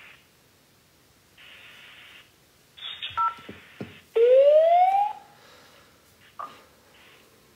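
Telephone-line sounds: short stretches of hiss, a pair of brief electronic beeps with clicks about three seconds in, then a loud tone rising in pitch for about a second.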